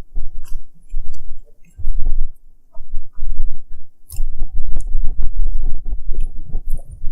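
Close-miked chewing of a cheesesteak sandwich: steady rhythmic mouth sounds with wet clicks and smacks.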